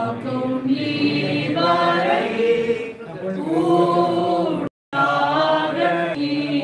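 Voices singing together in long held, gliding notes; the sound cuts out completely for a split second about three-quarters of the way through.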